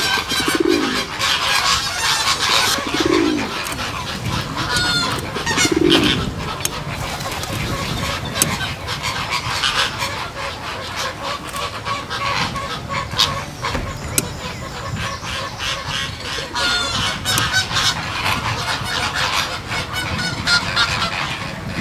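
A greater flamingo colony calling: a continuous chorus of overlapping honks and chatter from many birds, with a few lower single calls in the first six seconds.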